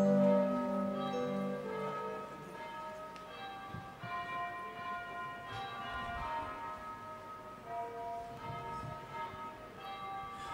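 Church bells ringing: a run of struck notes at different pitches, each ringing on and fading. A loud, deep group of notes dies away over the first two seconds or so, while higher notes carry on being struck.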